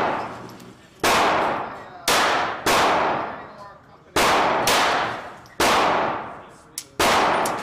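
Semi-automatic pistol shots fired one at a time, seven in all, spaced about half a second to a second and a half apart. Each sharp crack rings on in a long echo that dies away over most of a second, the reverberation of an enclosed indoor range.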